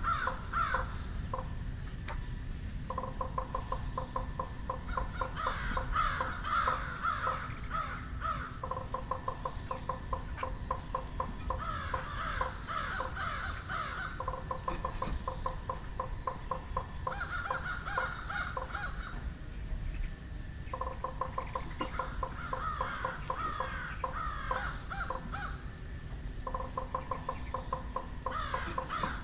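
A frog calling in repeated bouts of rapid, pulsing croaks a few seconds each, with short pauses between them and harsher rasping notes over several of the bouts: the calls of a frog seized by a snake.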